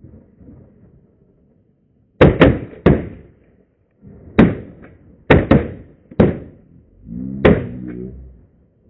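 Shotgun blasts during a duck shoot, about eight shots in all, some fired in quick pairs, spread unevenly through the stretch with each one ringing off briefly. Near the end a short pitched call wavers under the shots.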